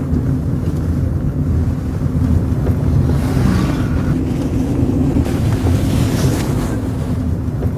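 Car engine and road noise heard from inside a moving car's cabin: a steady low drone, with two swells of rushing wind-like noise in the middle.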